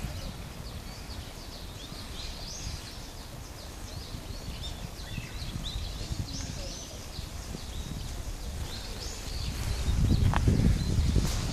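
Small birds chirping again and again over a low rumble of wind and microphone handling. The rumble grows louder near the end.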